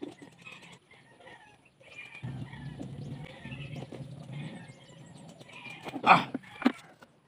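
Birds and farmyard animals calling in the background, with a low rumble in the middle and two loud knocks near the end, close to the microphone.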